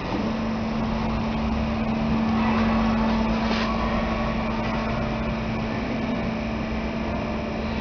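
MetalMaster PT 330 metal-cutting band saw running in manual mode, cutting through metal stock with a steady machine noise. A steady hum sets in just after the start and holds.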